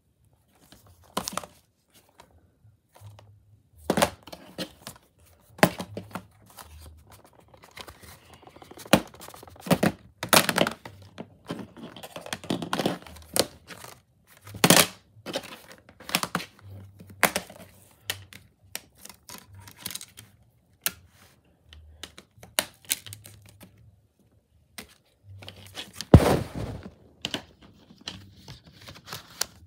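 Handling of a plastic Blu-ray case: irregular clicks, knocks and rustling, with a louder thunk near the end.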